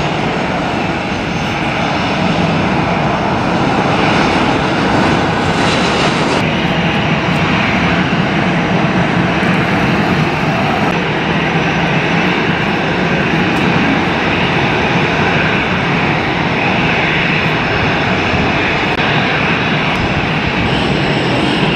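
A Boeing 737-800's CFM56-7B turbofan engines running, a loud, steady, even noise with no breaks.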